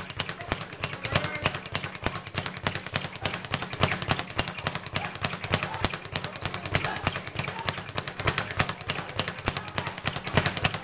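Speed bag being punched in a fast, unbroken rhythm of sharp rattling impacts as it rebounds off its board.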